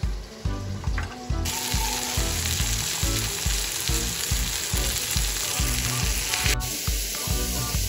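Chicken breasts sizzling in oil in a cast-iron skillet. The sizzle starts about a second and a half in, over background music with a steady beat.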